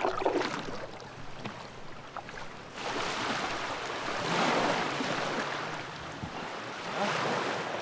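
Sea waves washing in, a rushing noise that comes in about three seconds in and swells, then eases off.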